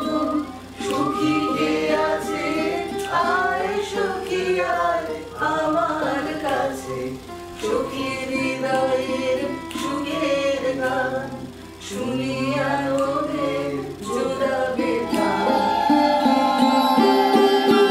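Women singing a Bengali wedding song with a repeated refrain. Near the end a sitar-led music track comes in.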